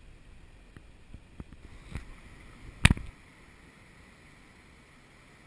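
Plastic sit-on-top kayak being paddled on calm sea: a few light knocks, then one loud knock about three seconds in, followed by a steady hiss of water and wind.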